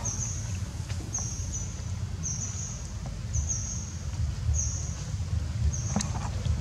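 A high, short chirping call repeating steadily about once a second, over a low steady rumble, with one sharp click about six seconds in.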